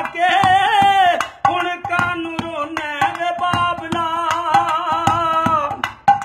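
Punjabi folk song music: a wavering melody line played over a steady rhythm of hand-drum strokes. The melody drops out shortly before the end, leaving the percussion alone.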